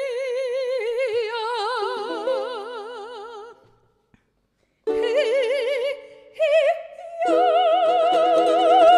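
A woman singing long held notes in an operatic style with wide vibrato, breaking off about three and a half seconds in and starting again about a second and a half later. Ukulele chords sound under the later notes.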